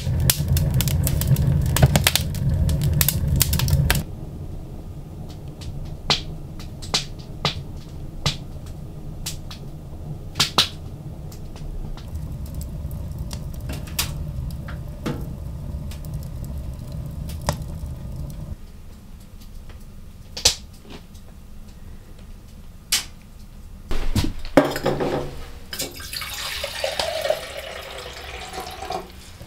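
Wood fire burning in a wood stove, crackling with sharp pops every second or so over a low rumble that drops a few seconds in and fades later. Near the end, water poured from a plastic bottle into a steel camp mug.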